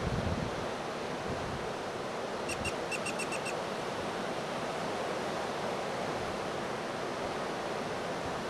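Ocean surf rushing steadily as a hurricane swell builds, with wind rumbling on the microphone at the start. About two and a half seconds in, a quick run of about six short high chirps.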